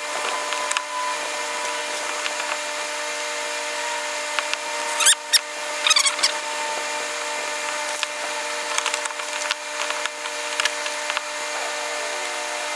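A hot plastic-welding iron, a soldering iron with a triangular foot, is being worked over melted high-density polyethylene on a canoe hull, smearing the filler into the patch. Its scraping gives scattered clicks and a short patch of crackling about five to six seconds in, over a steady background hum.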